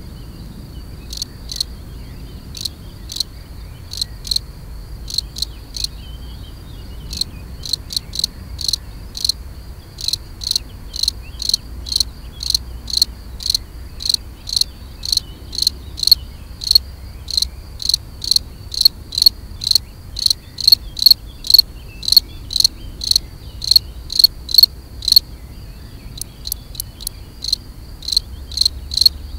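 A male European field cricket (Gryllus campestris) singing its calling song at its burrow entrance, wings raised: short high-pitched chirps repeated about two to three times a second, in runs broken by a few brief pauses. A faint steady ringing sits underneath at the same pitch.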